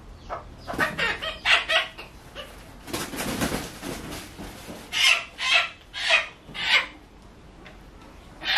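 Domestic chicken clucking in short loud calls, a quick run of them then four more about half a second apart, with a second-long rustle between the runs.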